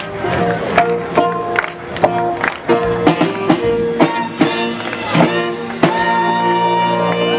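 Live swing jazz band playing, with saxophone, guitar and a drum kit keeping a bouncy beat. About six seconds in the drum hits stop and the band holds one long chord.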